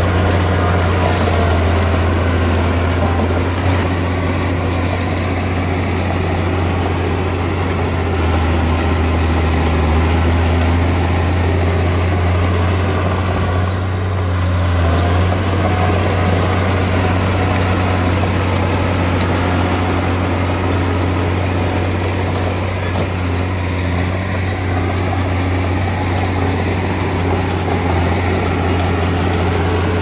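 Heavy diesel engine of earthmoving machinery running steadily under load, a strong low hum with mechanical noise over it; the note deepens for a stretch around the middle.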